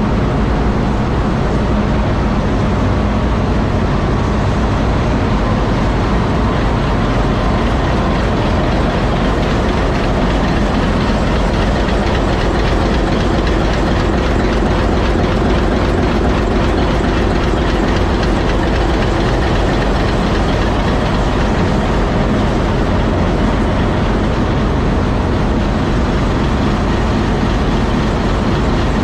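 Diesel locomotive engine idling, a loud, steady, unchanging run with no revving.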